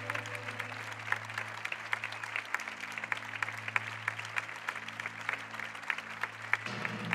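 Theatre audience applauding with many scattered claps, over music holding a low steady note that shifts slightly about six and a half seconds in.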